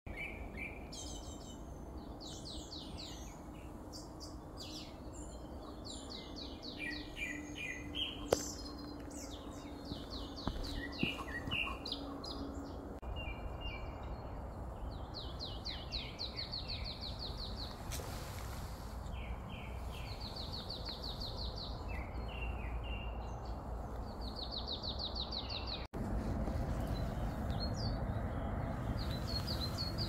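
Several songbirds singing in woodland, overlapping phrases of fast trills of repeated high notes, against a steady low outdoor background. About 26 seconds in there is a cut, after which the background gets louder and the song fainter.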